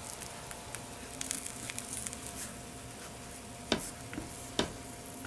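Handvo batter cake sizzling in a frying pan on the stove: a steady low sizzle with scattered small crackles. Two sharp clicks about a second apart near the end.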